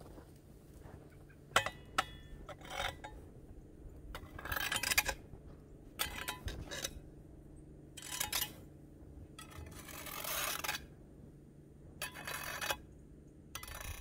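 Boots crunching through deep snow and a long-handled hoe scraping and pushing snow, in a series of separate strokes each about a second long. A couple of sharp clicks about two seconds in.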